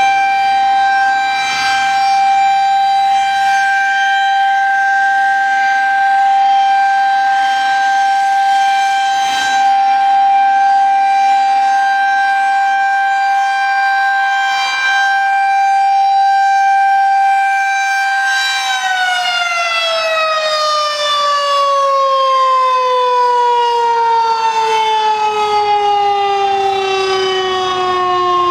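Federal Signal 2001-130 electromechanical outdoor warning siren holding one steady wailing tone, then, about two-thirds of the way in, cut off and winding down, its pitch falling smoothly and steadily as the rotor slows.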